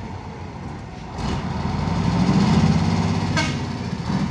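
Intercooled turbo-diesel truck engine running hard under heavy load, the truck bogged in soft mud and straining to pull out. The engine note swells about a second in and stays loud, with a brief high chirp a little past three seconds.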